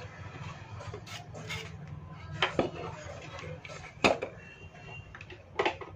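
Handling noise from a set-top box circuit board being turned over and laid down on a wooden workbench: scattered light knocks and clinks, the sharpest about four seconds in, over a steady low hum.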